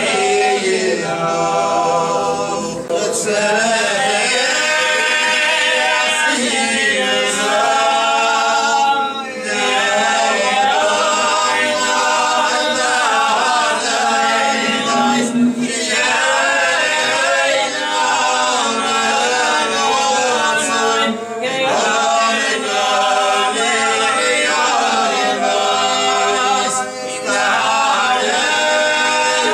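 A congregation of men singing Selichos prayers together, unaccompanied, in long phrases with a short break roughly every six seconds.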